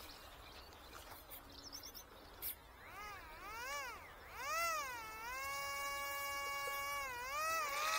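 Electric motors of a Wltoys XK A120 Airbus A380 RC model spinning up and down under throttle: a whine that rises and falls twice, then holds steady for about two seconds before dropping away near the end.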